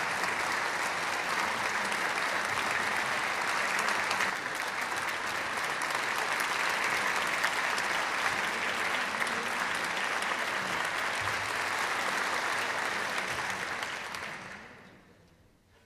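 Concert-hall audience applauding steadily, the clapping dying away near the end.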